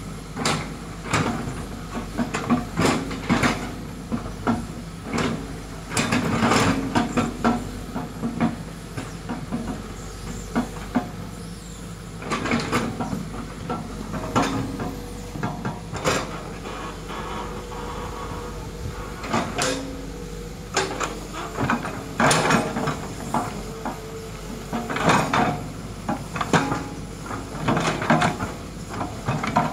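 Crawler excavator's diesel engine running steadily under load as it digs and scrapes soil, with frequent irregular clanks and knocks from the bucket, arm and tracks.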